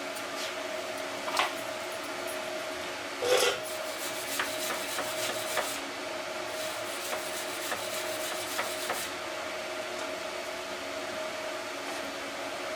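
Welding on a steel bracket: a steady electrical hum from the welder, with scattered ticks, a louder knock about three seconds in, and a spell of rapid crackling between about six and nine seconds in.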